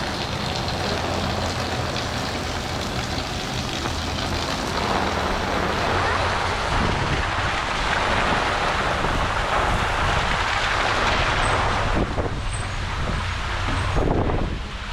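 Motor vehicle passing on a rain-soaked street, its engine a low hum under the hiss of tyres on wet pavement; the hiss swells and then falls away about twelve seconds in.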